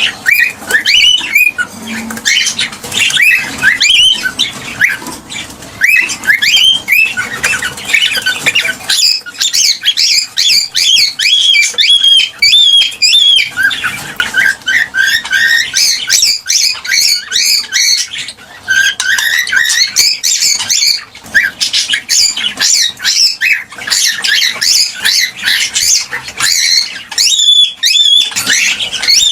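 Cockatiel chirping and calling without pause: quick runs of short, high chirps that bend up and down in pitch.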